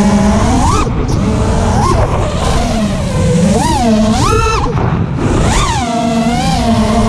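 FPV racing quadcopter's brushless motors (RCX RS2206 2400kv with 5-inch tri-blade props) whining, the pitch rising and falling several times as the throttle is punched and eased, over a steady rush of prop wash and wind. Heard from the GoPro mounted on the quad.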